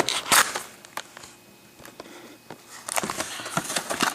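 Foil wrapper of a trading-card pack crinkling and tearing as it is handled and opened: a couple of loud rustling bursts at the start, a quieter lull, then a run of dense crackling near the end.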